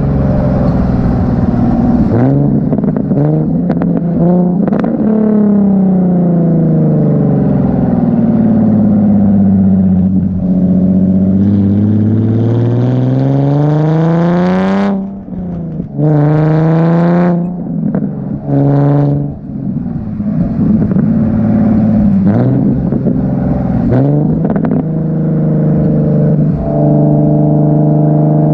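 Nissan 370Z's 3.7-litre V6 running through a Tomei Expreme Ti titanium exhaust. The revs fall away, then climb in a hard pull with three quick upshifts around the middle, each shift briefly cutting the sound and dropping the pitch. After that it settles into a steadier run.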